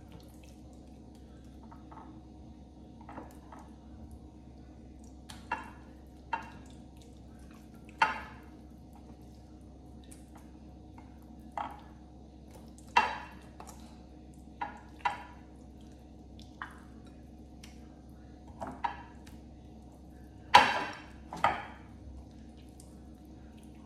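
Hand-mixing chicken drumsticks in a thick yogurt marinade in a glass bowl: irregular short wet squelches and light taps as the pieces are turned and coated, over a faint steady hum.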